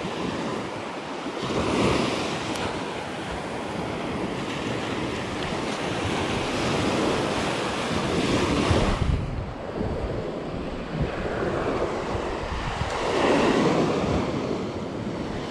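Small surf waves breaking and washing up onto the sand, the wash swelling and fading several times, with wind rumbling on the microphone.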